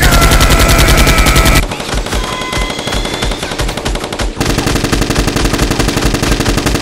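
Rapid automatic gunfire sound effect for a Nerf blaster shootout: two long, loud bursts of fast, even shots, with a quieter, looser stretch of shots between them.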